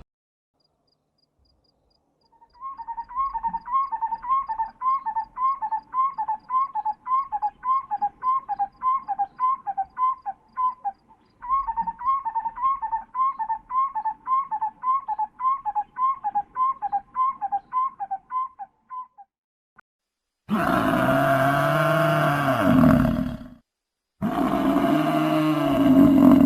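Wild animal calls: a long run of short, high, chirping calls, about two a second, in two bouts, followed by two loud roars of about three seconds each near the end.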